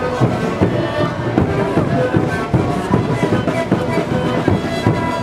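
A sikuri band playing: many siku panpipes sounding held notes together over a steady beat of large bombo drums struck with mallets.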